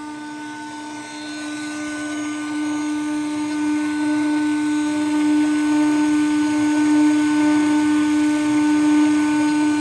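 CNC router spindle whining at a steady pitch as a tiny bit cuts a bat inlay pocket into a guitar fretboard. The cutting noise under the whine grows louder over the first half and then holds.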